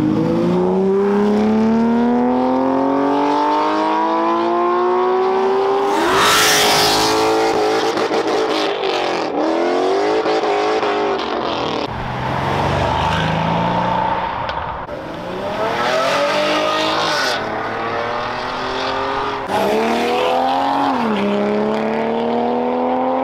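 Sports cars accelerating hard past one after another, their engines revving up in long rising sweeps, with a sudden drop in pitch at an upshift. A red Porsche 911 pulls away first and a Mercedes-AMG C63 coupe later. There is a loud noisy burst about six seconds in.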